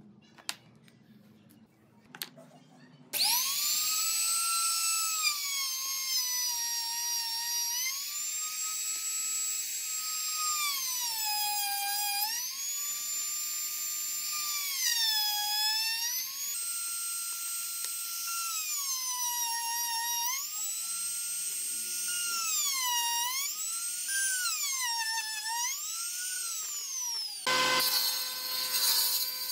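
High-pitched whine of a small high-speed power tool, starting abruptly about three seconds in. Its pitch dips and recovers again and again, as if it bogs under load. Near the end it gives way to a table saw cutting a hardwood board.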